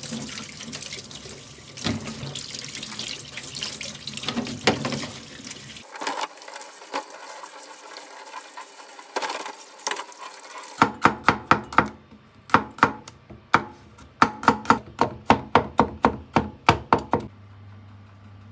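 Tap water running and splashing over live mussels in a stainless mesh strainer as they are rinsed. About halfway through the water stops and a quick run of sharp clacks follows, several a second, as the mussel shells are handled and knocked together in the metal strainer.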